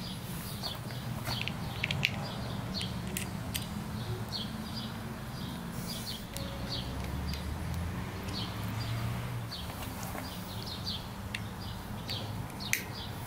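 Small birds chirping in short, repeated calls over a steady low hum, with a few sharp clicks here and there.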